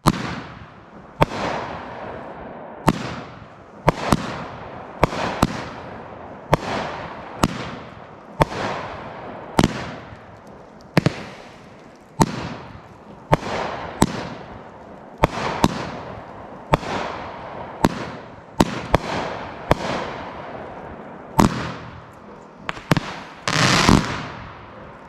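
A 200 gram, 20-shot consumer firework cake firing shot by shot: a steady run of sharp bangs from lifts and shell breaks, each trailing off in a fading hiss, with a denser, louder cluster of shots near the end.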